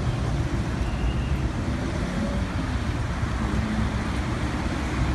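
City street traffic: cars passing on a multi-lane boulevard, a steady wash of engine and tyre noise.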